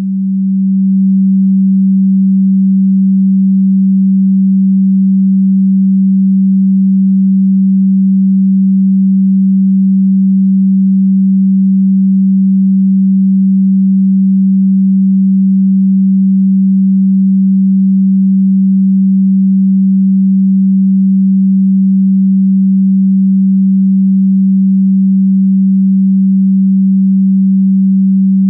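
An electronically generated pure sine tone, low in pitch, held steady and unchanging; it swells in during the first second.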